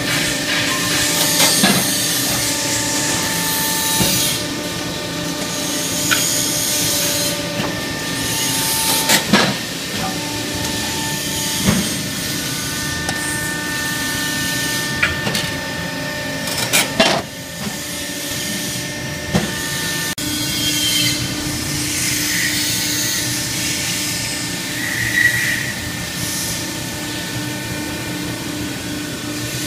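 Sunrise hydraulic ironworker with a CNC infeed feeder running through an automatic shearing cycle: a steady hum and whine from the hydraulics and feed drive, with a few sharp clanks as the shear cuts the steel plate.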